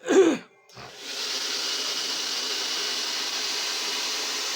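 Handheld hair dryer switched on about a second in, then running steadily with an even rushing hiss and a faint high whine. A short loud vocal cry comes just before it starts.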